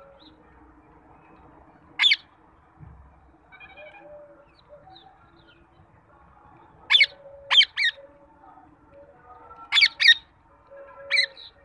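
Rose-ringed parakeets giving short, harsh screeches: one about two seconds in, a quick run of three around seven seconds, a pair near ten seconds and one more near the end.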